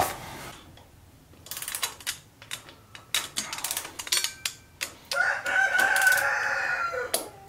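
A hand ratchet clicking in quick runs as the front axle and fork slider cap nuts are tightened. About five seconds in comes a steady-pitched sound held for about two seconds, louder than the clicking.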